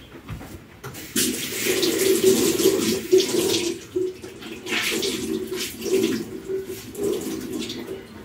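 Water running from a kitchen tap into a sink, turned on about a second in, the flow splashing unevenly.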